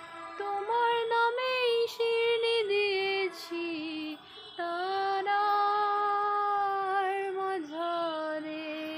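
A female voice singing a slow melody solo, sliding between notes. There is a brief break a little before halfway, then one long held note.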